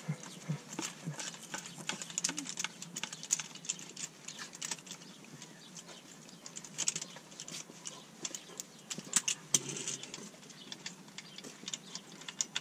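Hand ratchet clicking in short, irregular runs of sharp clicks as bolts are backed out of the transmission tail housing.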